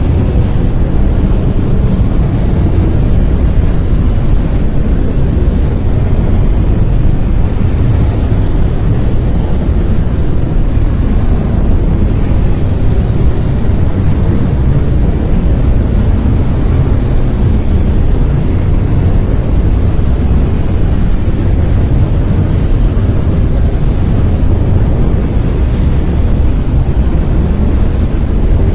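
Brown noise: a steady, loud, deep rumbling hiss with most of its energy in the low end, unchanging throughout.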